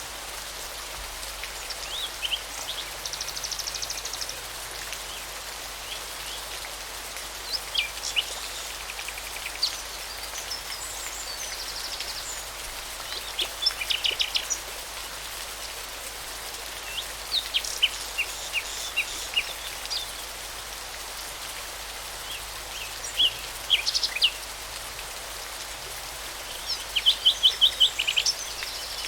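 A songbird singing short phrases of quick chirps and trills, repeated every few seconds, over a steady background hiss.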